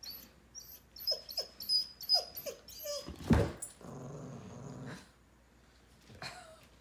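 German Shorthaired Pointer whining in a series of short falling whimpers, then one loud sudden sound about three seconds in. A low, steady hum-like growl follows for about a second: the dog's 'humming' talk.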